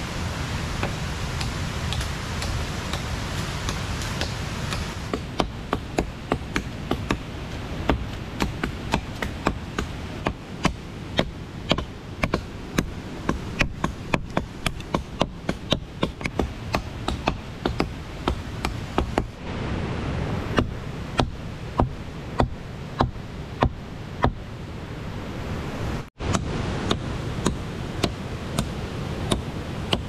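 Steady rush of river water, then, from about five seconds in, a blade chopping into a fallen log: rapid, evenly spaced blows, about two a second, going on for most of the rest.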